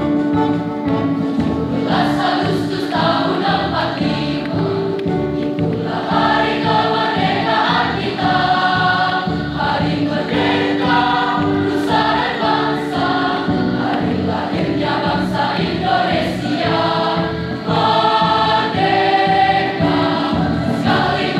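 A large school choir singing together in parts, accompanied by an electronic keyboard played through an amplifier speaker.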